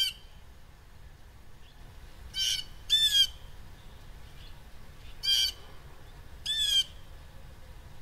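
Blue jay giving five short, harsh jay calls. Two of them come close together about two and a half seconds in, and the rest are spaced a couple of seconds apart.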